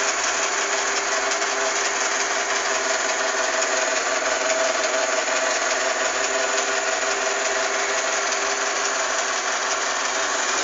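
Sharp Cocorobo robot vacuum cleaner running: a steady whir of its motor and brushes with a constant hum.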